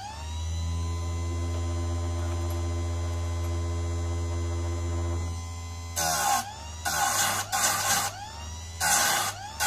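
Einhell electric saw-chain sharpener: its motor and grinding wheel run steadily unloaded for about five seconds, then the wheel grinds chainsaw teeth in a series of short grinding bursts, the motor's pitch sagging under each cut and recovering between them.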